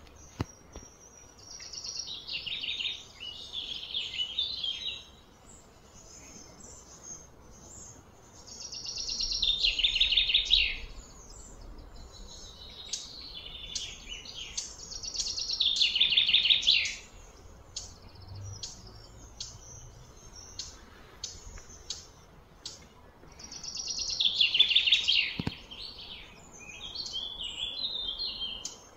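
Bird song: high-pitched trilled phrases, each a few seconds long, repeating about every five seconds, with short scattered chirps between them.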